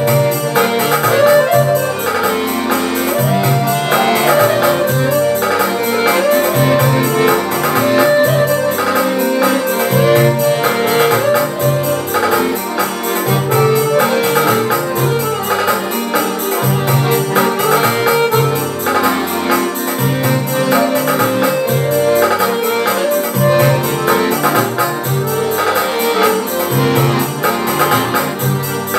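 Maga piano accordion playing a tune, the melody moving over a steady, evenly pulsing bass accompaniment.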